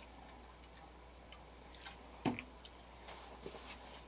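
Plastic squeeze bottle set down on a tabletop: one sharp knock about two seconds in, with a few faint ticks around it.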